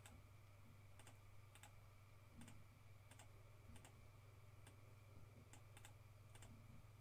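Near silence with faint, scattered clicks of a computer mouse and keyboard, about a dozen over the few seconds, above a low steady hum.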